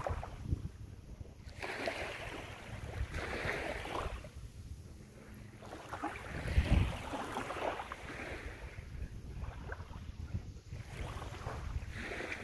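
Small waves washing up on a sandy shore, each wash swelling and fading every couple of seconds, with wind rumbling on the microphone and one stronger gust about halfway through.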